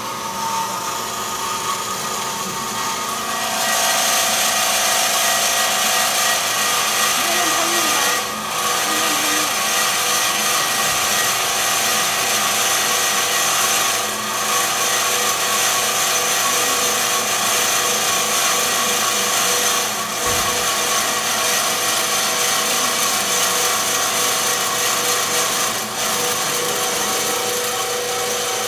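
Cosen M5 CNC automatic metal-cutting band saw running and sawing, a steady rasping whine that gets louder about three and a half seconds in. The level dips briefly every six seconds or so.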